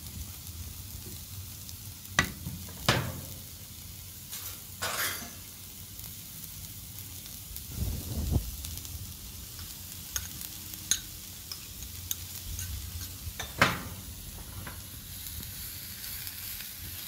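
Chopped onion sizzling in oil in a non-stick frying pan as grated cauliflower rice is tipped in from a bowl and stirred with a wooden spatula. Several sharp knocks against the pan come through the sizzle, the loudest late on.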